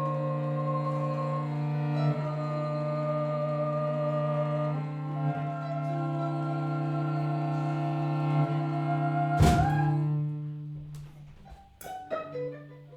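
Improvised music: bowed strings holding long notes over a steady low drone, the pitches shifting every few seconds. About nine and a half seconds in comes one loud sharp hit, after which the music thins out into scattered short notes.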